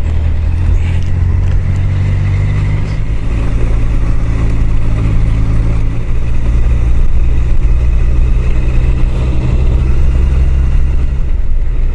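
Honda CBR1000F's inline-four engine running steadily at a modest road speed, heard through a helmet microphone along with wind and road noise.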